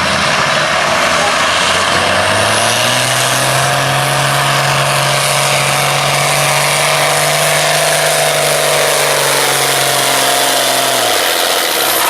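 Farm pulling tractor's engine running hard under load during a pull. Its pitch climbs over the first couple of seconds, holds steady, and drops away near the end.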